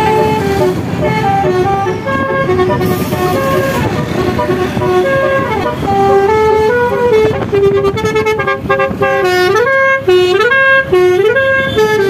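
Telolet horn playing a melody: multi-tone horns sounding a tune in held, stepped notes, with a few quick upward pitch slides near the end, over the rumble of traffic and motorbike engines.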